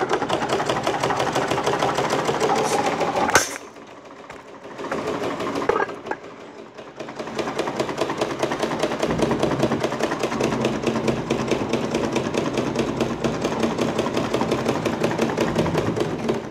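Butterfly treadle sewing machine stitching fabric: a rapid, even clatter of the needle mechanism driven by the foot pedal. It stops with a sharp click a few seconds in, gives a short burst, then runs steadily again until it stops at the end.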